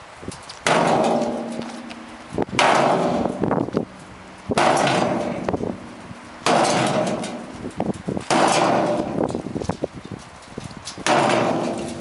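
An axe repeatedly strikes a stripped dishwasher tub, six heavy clanging blows about two seconds apart. Each blow rings on for about a second.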